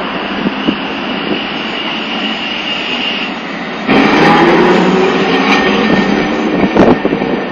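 Nagasaki Electric Tramway streetcar approaching, with a thin steady high whine over street noise. About four seconds in, the sound turns suddenly louder as the tram runs close by, with a heavier rumble and some sharp clacks.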